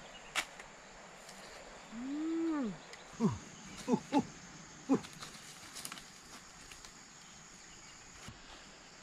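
A voice gives one long call that rises and then falls, followed by about four short cries that each drop sharply in pitch, over a steady high hum. A single click comes about half a second in.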